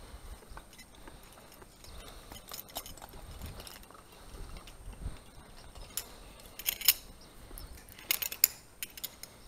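Metal rope-access hardware, a descender and carabiners, clinking and rattling as it is handled on the rope, with a few scattered clicks and two short bursts of sharp clinks in the last third, the second near the end.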